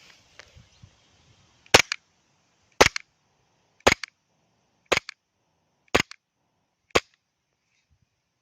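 Umarex Glock 19 green-gas airsoft pistol firing six single shots about a second apart, each sharp crack followed closely by a fainter click.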